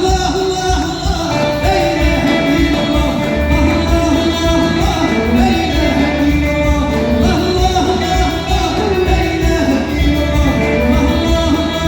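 Live Hassaniya Saharan Moroccan music: a steady percussion beat under a melody line, with singing.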